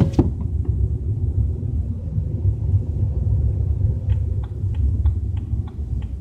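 Low, steady rumble heard inside the cabin of a BMW 320i driving at about 30 to 40 km/h: the strange rumbling noise the owner is chasing. From about four seconds in there is also a light, regular ticking, about three ticks a second.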